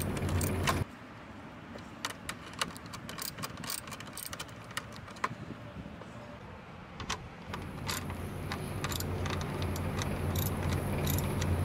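Socket wrench ratcheting and clinking as the radiator bracket bolts are undone: a run of quick, irregular metallic clicks. A steady low hum drops out about a second in and comes back near the end.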